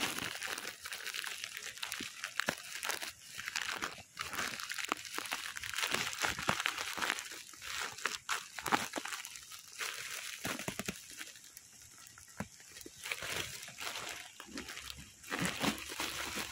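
Toy rail set's packaging crinkling and rustling as it is unboxed by hand, with many small clicks and taps.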